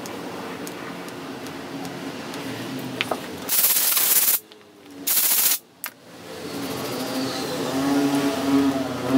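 Compressed-air blow gun blowing off a motorcycle starter motor armature: two loud hissing blasts of about a second each, then a short third puff.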